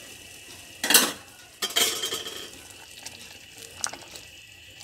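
A spatula stirring plum chutney as it simmers in a steel pot over a steady low sizzle. There is a sharp knock against the pot about a second in, followed by a longer scrape.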